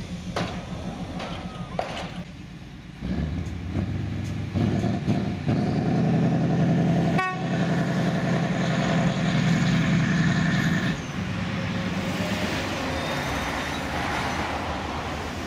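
Diesel engine of an Lxd2 narrow-gauge diesel-hydraulic locomotive powering up about three seconds in as the locomotive moves off along the track. It runs hard for several seconds, then eases back near the end. A single sharp click is heard about halfway through.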